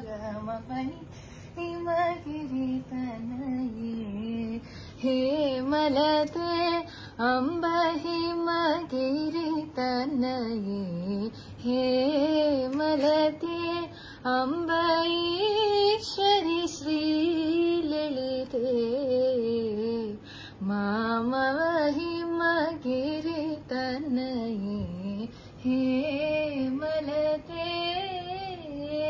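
A teenage girl singing solo and unaccompanied: a slow melody in long phrases, with wavering, ornamented notes and short breaks for breath.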